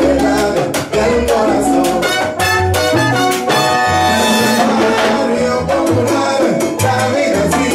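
Live salsa band playing an instrumental passage: trombones and trumpets over bass and percussion, with a held horn chord about halfway through.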